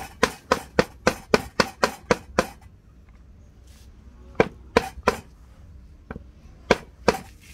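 Stone pestle pounding fresh herbs on a wooden block: a fast run of about ten knocks, roughly four a second, then after a pause two short groups of knocks.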